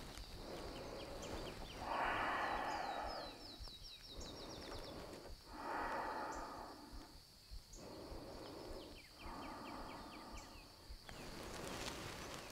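Faint, slow, deep breathing: three long breaths of a second or two each. Two short runs of quick high chirps come in between.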